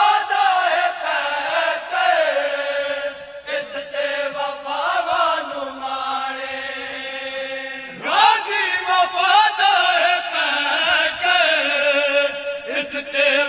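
Group of men reciting a devotional kalaam in chorus. Long, wavering sung lines ride over a steady held note beneath, and the voices swell again about eight seconds in.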